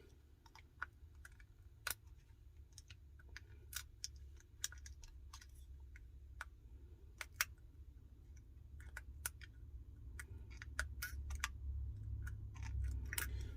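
Light, irregular clicks and taps of a small repair tool against the opened iPhone 12's internals as its flex cable connectors are pried off.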